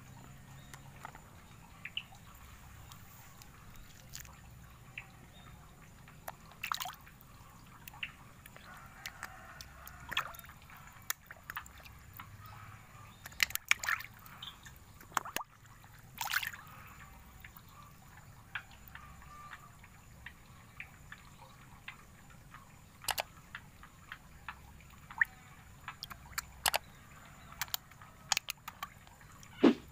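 Small, irregular splashes and drips of pond water around a hand held at the surface, churned by fish feeding eagerly at it.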